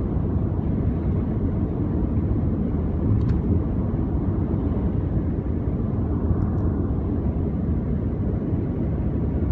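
Steady low rumble of tyres and engine heard from inside a moving car's cabin.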